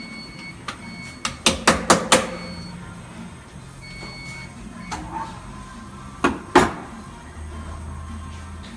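Tyre-shop work on a wheel: short electronic beeps from a machine, sounding four times, and a run of five sharp knocks about a second and a half in, with two more knocks about six and a half seconds in. A low machine hum starts near the end.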